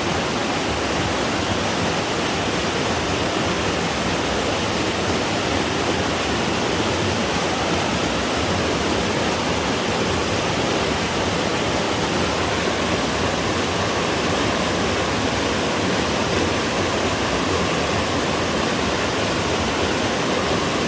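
Two-tiered twin waterfall on a mountain stream pouring steadily: a continuous, even rush of falling water.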